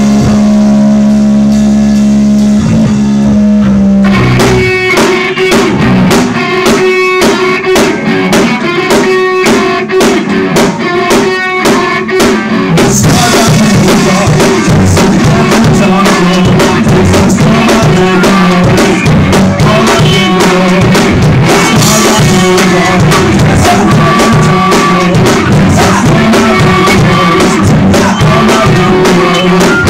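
Loud punk rock jam on electric guitar and drum kit, recorded close on a phone's microphone. It opens on a held guitar chord, moves into a choppy, stop-start rhythmic section, and from about halfway in the full band plays with crashing cymbals.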